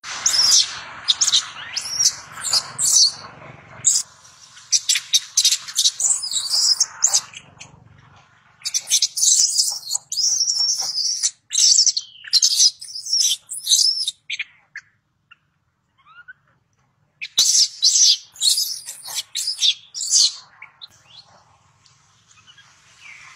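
Baby long-tailed macaque screaming in high-pitched squeals, in repeated bouts with a pause of about two seconds past the middle: the distress cries of an infant being pinned and stepped on by its mother.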